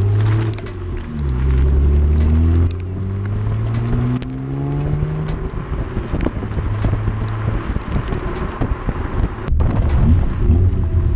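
BMW 335xi's twin-turbo N54 inline-six running with its electric exhaust cutouts open, accelerating: the pitch rises, drops at a gear change, rises again, then settles into a rougher, steady drone.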